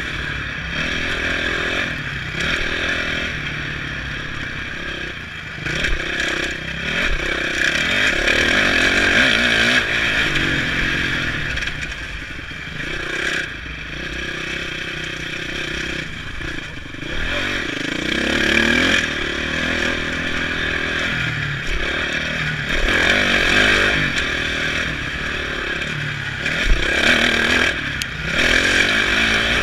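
Motocross dirt bike engine revving up and down again and again with the throttle as it is ridden hard around the track, heard from a helmet-mounted camera, with clattering and scraping from the bike over the rough ground.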